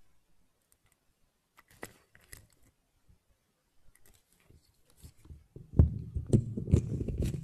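Faint scattered clicks and rustles, then near the end a loud burst of low thumps and rumbling: handling noise as the microphone is moved into position.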